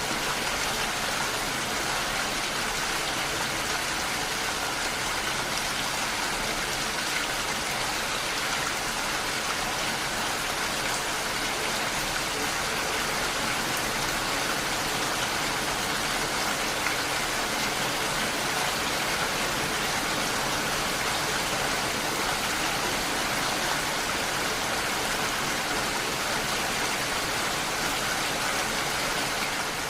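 Heavy rain falling steadily, an even rushing patter of drops on surfaces.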